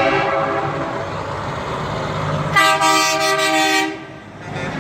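Semi-truck air horn sounding one blast of about a second, a chord of several tones that cuts off sharply, over the rumble of a passing diesel truck. A horn blast from the truck before is just dying away as it begins.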